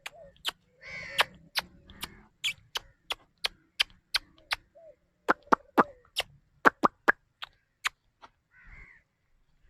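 Footsteps on a hard path: quick, sharp steps about three a second that stop near the end.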